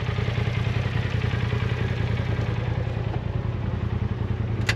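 Side-by-side UTV engine running steadily at low revs, with no rise or fall in pitch.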